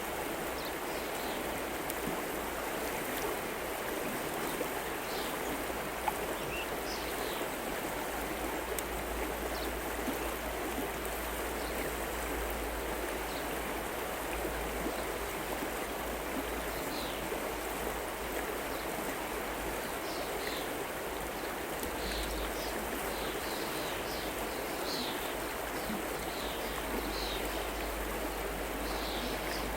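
River water running steadily, with short high bird chirps scattered through it, more often in the second half.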